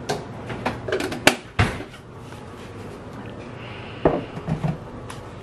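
Kitchen handling sounds: a quick run of knocks and clinks, as of pots and utensils, in the first two seconds or so, then a few scattered knocks over a steady quiet background.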